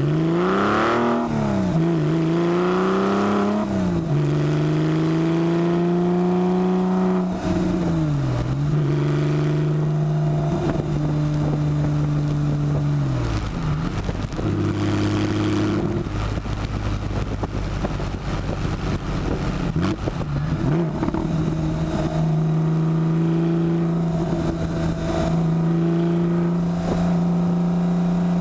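Porsche 996 flat-six engine with a muffler bypass exhaust, loud, accelerating through the gears: the note climbs and drops back at three upshifts in the first eight seconds. It then runs at a steady cruise, dipping briefly around thirteen and twenty seconds in.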